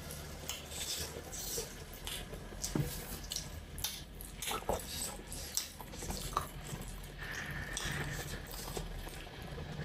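Quiet eating sounds: wet chewing and small scattered mouth clicks of someone eating rice and curry.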